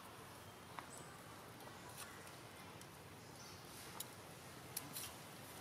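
Quiet outdoor background: a steady faint hiss with a few sharp little clicks scattered through it.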